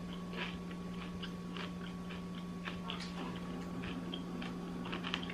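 Someone chewing a bite of jalapeño stuffed with cream cheese and Takis chips, with irregular crisp crunches. A steady low hum runs underneath.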